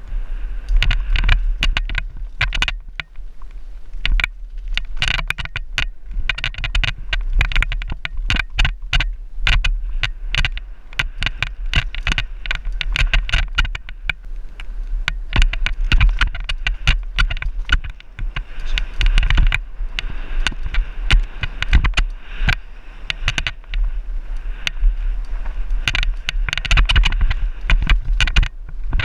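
Downhill mountain bike riding fast down a dirt trail: a dense, constant rattle and clatter of the bike over bumps and tyres crunching on dirt and gravel, over a low wind rumble on the microphone.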